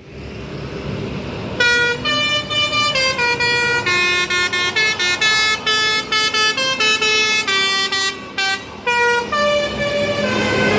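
Basuri telolet bus horn playing a quick melody of short tooted notes that jump between pitches, with brief breaks between phrases. It starts about a second and a half in.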